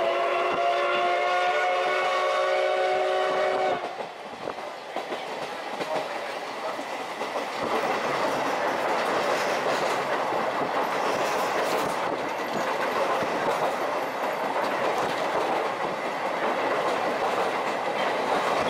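A steam locomotive whistle, the C57 180's, sounds one long blast of several tones for about four seconds and then cuts off sharply. After it comes the steady rumble and wheel-on-rail noise of the moving train, which grows louder a few seconds later.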